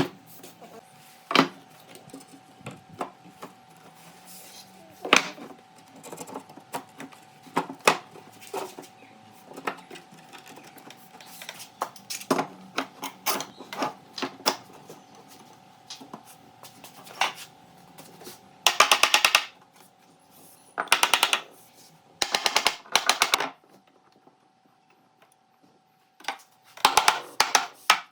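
Workshop tool and wood noise: scattered knocks and taps, then four bursts of rapid ticking, each about a second long, from a tool working the wood.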